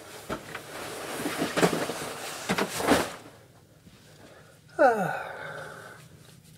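Rustling and handling noise for about three seconds, with a few sharper knocks. Then, about five seconds in, a woman makes one short wordless vocal sound that falls in pitch.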